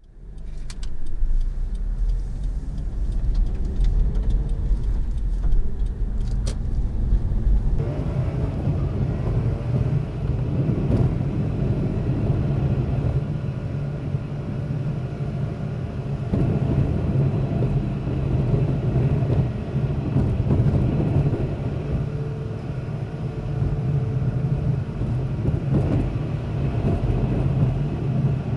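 A car driving, a steady mix of engine and road noise. The sound changes character about eight seconds in, from a deep low rumble to a fuller, steady drone.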